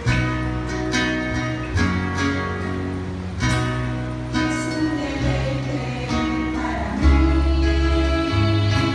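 Church choir's live band playing an instrumental passage of a hymn: acoustic guitar strummed in changing chords over low bass notes, with a fuller, louder chord about seven seconds in.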